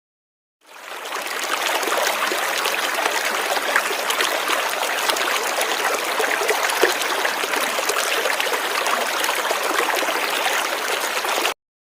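River water flowing, a steady rushing of running water. It fades in over about a second and cuts off suddenly near the end.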